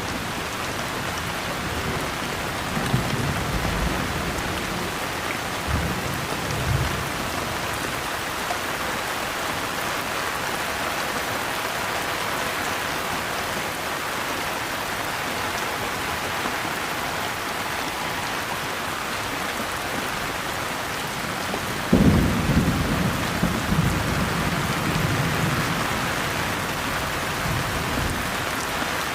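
Steady rain falling, with rolls of thunder: two short low rumbles a few seconds in, then a sudden louder thunderclap about three-quarters of the way through that rumbles on for several seconds.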